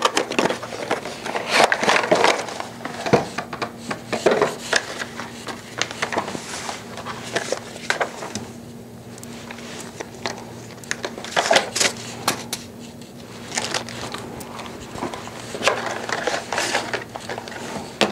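Unboxing handling noise: a cardboard box opened and its paper inserts, booklets and plastic bags rustling and crinkling, with scattered taps and knocks as items are set down on a wooden tabletop. A faint steady hum runs underneath.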